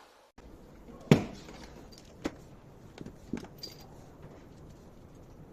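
A few short, separate knocks and clicks, the loudest about a second in and three lighter ones over the next couple of seconds.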